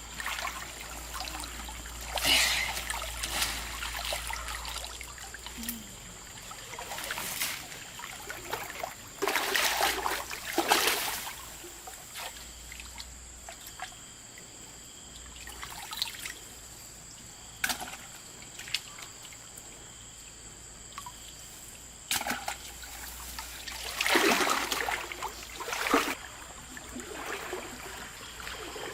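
Water splashing and trickling in several irregular bursts, the loudest about two, ten and twenty-four seconds in, with quieter trickling between.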